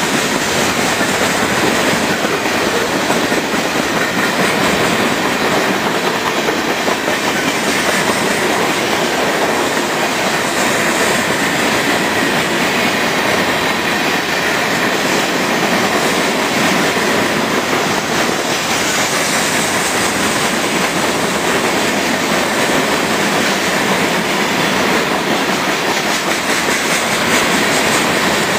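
Freight train's cars rolling past at close range: a steady, loud run of steel wheels on the rails that holds even throughout.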